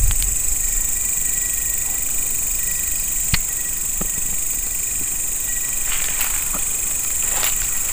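Night insects chirping in a steady high-pitched chorus, with a steady lower trill underneath. A sharp click comes a little past three seconds in, and brief rustles come near the end.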